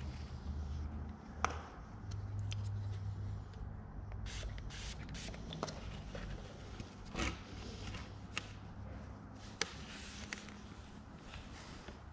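Handling noise from gluing casing corners: scattered sharp clicks and small knocks of trim pieces and plastic glue bottles on a concrete floor, with a few short hissy scrapes, over a low steady hum.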